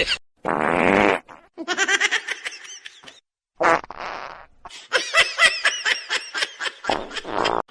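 Three buzzy fart sounds, each under a second long, with a person laughing between them.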